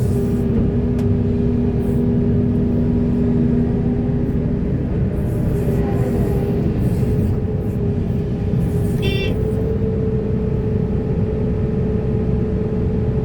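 Diesel engines of heavy earthmoving machinery running steadily with a deep rumble and a steady hum. A short high-pitched squeal comes about nine seconds in.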